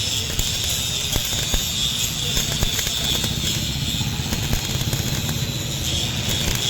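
Electric arc welding on a steel truck chassis: a steady sizzling crackle with frequent sharp pops.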